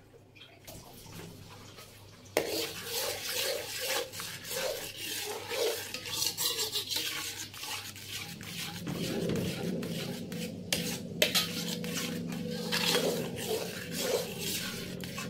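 Perforated metal spoon stirring and scraping thick semolina and gram-flour halwa in a metal pot, with frequent clicks of the spoon against the pot, starting about two seconds in. A low steady hum joins underneath about nine seconds in.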